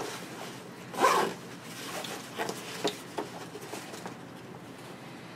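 Fabric backpack being handled: a loud swish of fabric about a second in, then lighter rustles and a few small clicks.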